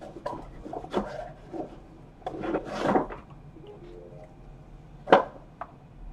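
Trading cards and card holders being handled on a tabletop: light clicks and rustling, a rubbing swish about two and a half seconds in, and a sharp knock about five seconds in.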